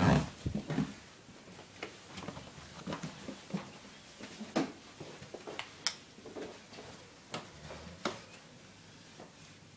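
A man's loud snore ending at the very start, followed by irregular short clicks and brief snuffling breaths from the sleeper, each a second or so apart and growing fainter toward the end.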